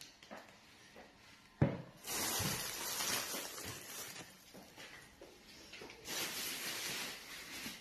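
Thin plastic grocery bags crinkling and rustling as they are handled, in two long stretches, after a single thump about a second and a half in.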